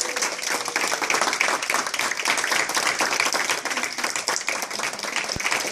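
A small group of people clapping steadily in applause.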